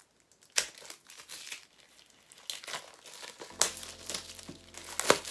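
Plastic shrink-wrap being torn open and crinkled off a hardcover book, in irregular crackles that start about half a second in and get busier in the second half.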